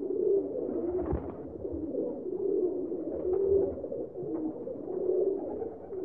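Feral pigeons cooing: low coos following one another every second or so.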